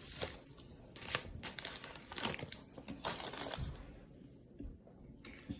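Plastic snack wrapper crinkling and rustling in irregular bursts as it is handled, with a short click near the end.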